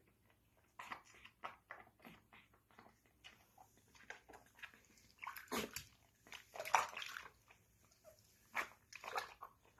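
Capuchin monkey making short squeaks and whimpers while water splashes in a sink as it is scrubbed, with the loudest calls a little past halfway.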